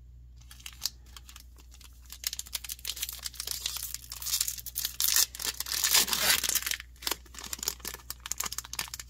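A Magic: The Gathering booster pack wrapper being torn open and crinkled: a busy run of crackling rips and crinkles starting about two seconds in, heaviest in the middle.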